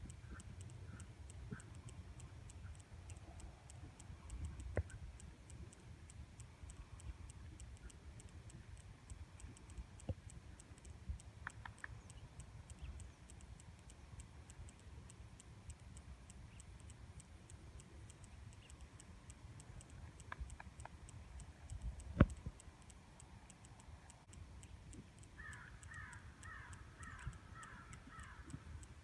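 Faint outdoor ambience: a low rumble under a fine, steady high ticking, with a few scattered clicks and one sharp knock about two-thirds of the way through. Near the end a bird calls in a quick run of about eight short calls.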